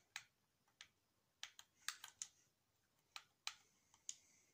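Keys being pressed one at a time while a search term is entered: about ten faint, sharp clicks at an uneven, slow pace.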